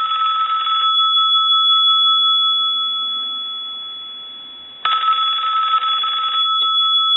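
Mickey Mouse novelty telephone's bell ringing twice: a ring that stops about a second in, its tone dying away, and a second ring starting about five seconds in. This is the phone's cadenced ring.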